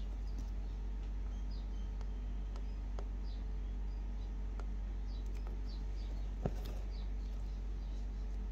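A steady low hum runs throughout, with faint, scattered high chirps of small birds. A few soft clicks come from the hooped embroidery fabric being handled, the sharpest about six and a half seconds in.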